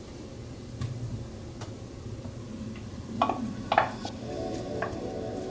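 Kitchen utensils clicking lightly, then a wooden spatula clinking twice against a glass bowl with a short ringing note as chopped vegetables are scraped out into a frying pan. A steady held tone, like background music, starts about four seconds in.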